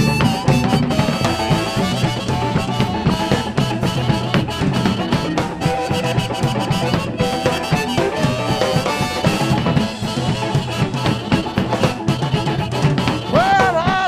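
A live blues band of guitar, bass guitar and drum kit playing an instrumental passage with no singing, the drums prominent.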